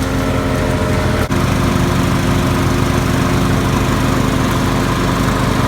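Petrol lawn mower engine running steadily at full speed, with a brief dip a little over a second in.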